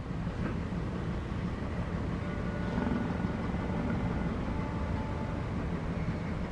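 A Cape fur seal snoring: a low, steady snore with a fast flutter to it.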